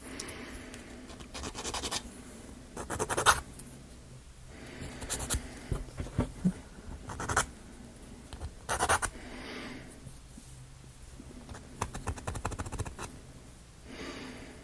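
Sandpaper rubbed by hand over small wooden kit parts, scratching in short strokes every second or two.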